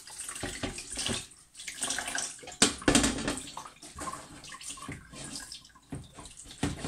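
Water from a kitchen tap splashing over an oven's glass door panel as it is rinsed in the sink, with a few knocks of the glass against the sink.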